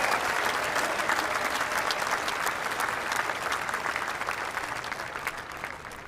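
Large outdoor crowd applauding, the clapping strongest at first and slowly dying away.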